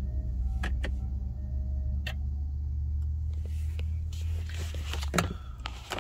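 Steady low hum of the 2014 Prius Plug-in running, heard inside the cabin, with a few light clicks in the first two seconds. Rustling handling noise takes over in the last two seconds.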